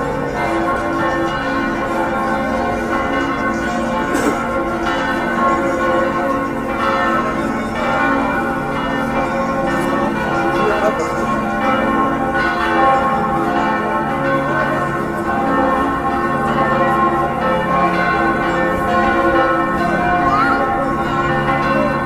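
Church bells ringing in a continuous peal, many ringing tones sounding over one another without a pause.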